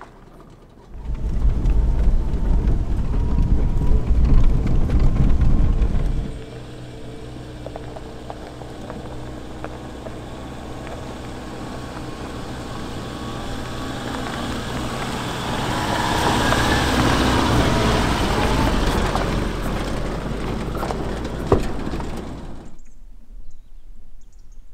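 Subaru Forester's flat-four engine and tyres on a gravel track: a heavy low rumble for the first few seconds stops suddenly, then the car drives up and past, growing louder to a peak past the middle and fading before the sound cuts off near the end.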